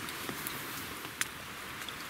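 Hot water poured in a thin stream from a kettle into a drip-bag coffee filter, a steady trickling hiss with a few light ticks and one sharper click just past halfway.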